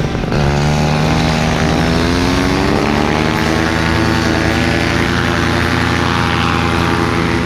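Paramotor engine and propeller running up to full power, the pitch climbing for the first few seconds and then holding steady at takeoff thrust.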